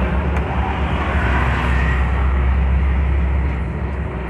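An owner-type jeep driving: a steady low rumble of its engine and road noise, heard from inside the cabin.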